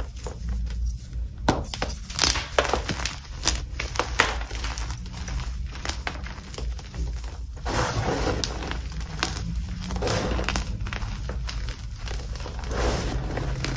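Hands squeezing and kneading crumbled dip-dyed Magking gym chalk, which is crunchy yet soft. Many short dry crunches run through it, with longer stretches of soft powdery crumbling about eight, ten and thirteen seconds in.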